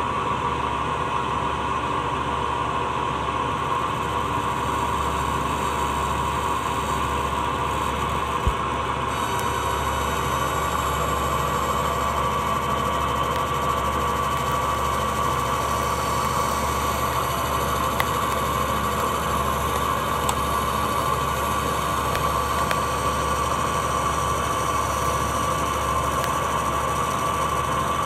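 Metal lathe running steadily at roughly 500 to 700 rpm, spinning a large DC forklift traction motor armature while the tool takes a very fine power-fed cut across the copper commutator. A constant hum with a steady whine over it, and a brief tick about eight seconds in.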